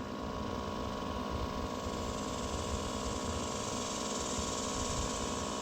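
Fan motor of a battery-powered bee vacuum (Everything Bee Vac) running steadily on low, a constant hum, with a hiss that grows louder about two seconds in.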